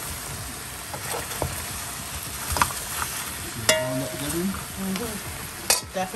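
Turkey neck pieces sizzling in a metal pot as they brown dry, stirred with a metal spoon, with three sharp clacks of the spoon against the pot.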